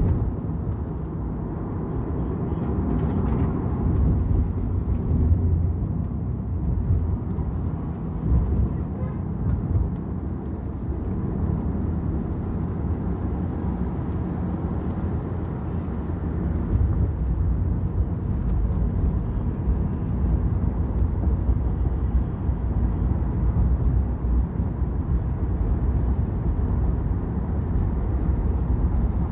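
Car driving through city traffic: a steady low rumble of road and engine noise.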